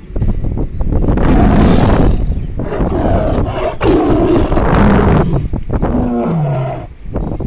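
Loud, rough animal roaring in long bouts, ending near the end in a few short grunts that step down in pitch.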